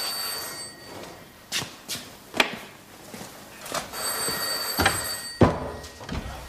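Telephone ringing twice, the first ring dying away just after the start and the second about four seconds in. Sharp knocks and thumps come in between, the loudest just after the second ring.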